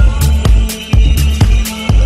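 Background music with a steady beat, about two beats a second, over heavy bass.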